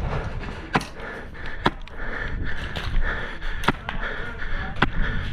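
Sharp single cracks of airsoft guns firing, five of them about a second apart, over close rustling and breathing.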